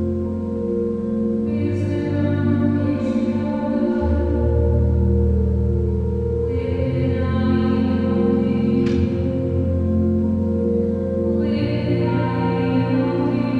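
Large mixed choir singing slow, sustained chords, the harmony shifting every few seconds, in a big brick church.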